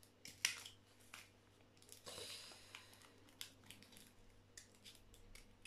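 Craft scissors snipping out a temporary tattoo from its paper sheet: a few quiet, irregular snips, with a short crinkle of paper about two seconds in.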